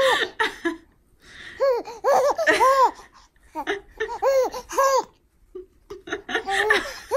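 A baby laughing in about four bouts of short, high-pitched arching squeals, with brief pauses between them.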